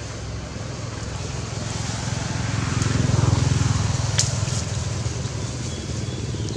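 A motor vehicle's engine running as it passes by: a steady low hum that grows louder to a peak about three seconds in, then fades. A single sharp click comes about four seconds in.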